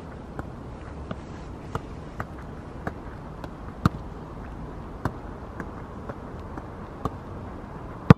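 Football being kept up and volleyed back and forth on a grass pitch: a short strike on the ball about every half second, with one much harder kick right at the end. Underneath is a steady low background noise.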